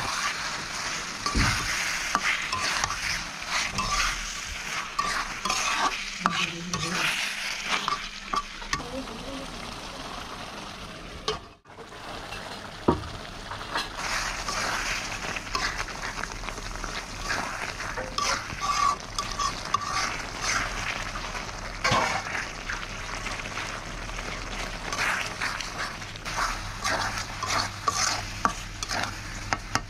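Loitta (Bombay duck) fish frying in spiced oil in an aluminium pot, sizzling while a metal spoon stirs and scrapes against the pot, breaking the fish up. It cuts out briefly about a third of the way through.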